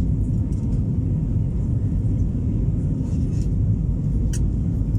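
Steady low rumble of an Airbus A320neo's engines and airflow, heard from inside the passenger cabin as the airliner climbs after takeoff.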